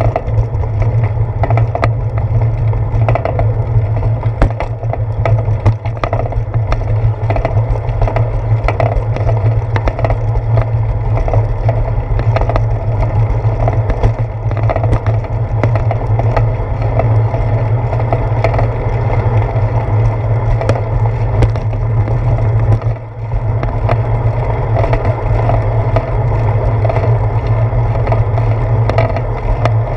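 Bicycle rolling over a paved path, heard through a seat-post-mounted GoPro Hero 4 in its housing: a steady low rumble with frequent small clicks and rattles as the bike and camera mount jolt over bumps and pavement joints.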